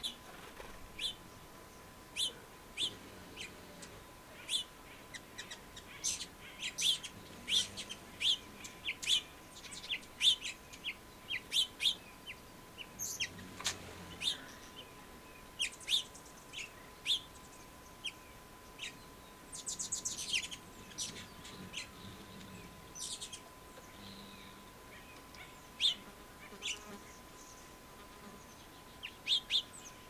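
House finches chirping: many short, high call notes scattered irregularly, bunching into a quick run of notes about twenty seconds in.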